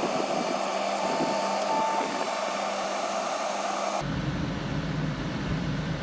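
Tracked skid steer running under hydraulic load as its loader arms raise the sickle bar mower, a steady whine over the engine. About four seconds in it changes abruptly to a lower, rumbling engine idle.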